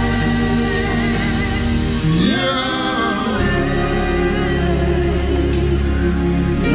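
Slow live gospel worship music: several singers' voices over sustained low chords.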